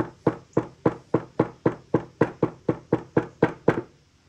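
A rapid series of about fifteen evenly spaced sharp knocks, roughly four a second, stopping about four seconds in.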